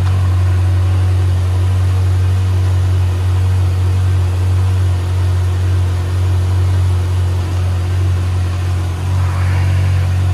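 Brand-new Kawasaki ZX-6R inline-four motorcycle engine idling steadily on its very first run.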